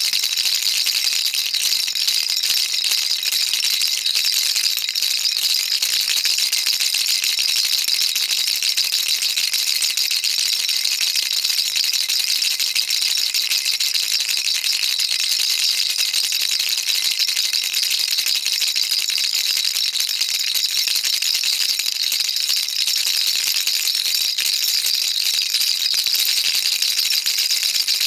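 Baby rattle shaken continuously: a dense, steady hiss of small beads clattering inside, bright and high-pitched, with no pauses.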